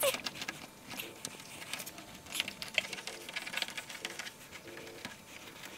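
Faint, scattered small clicks and rubbing as fingers and a plastic trim tool work a rubber weatherstrip into a metal roof rail channel.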